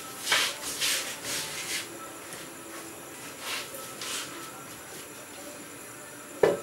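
A pool cue's tip strikes the cue ball once, a single sharp click about six and a half seconds in, after several seconds of soft rustling noises in the room.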